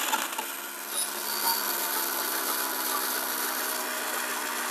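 1zpresso hand coffee grinder driven by a variable-speed motor kit, grinding coffee beans: a steady motor hum with the gritty rasp of beans being crushed in the burrs.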